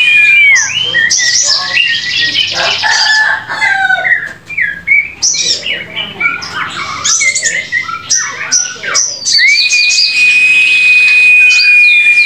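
Fledgling white-rumped shama (murai batu), about six weeks old, singing: quick varied chirps, trills and gliding notes, then a long whistle held at one pitch for about three seconds near the end.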